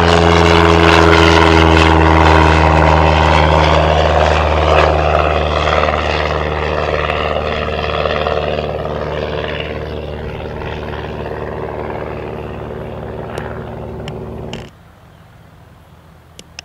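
Cessna 172's piston engine and propeller at takeoff power as the plane climbs away: a steady drone with a low multi-tone hum that slowly fades with distance. It cuts off abruptly about fifteen seconds in, leaving only faint background sound.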